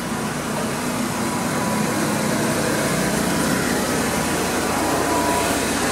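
Steady rushing hum, like machinery or traffic running, with a faint steady whine in it, growing slightly louder.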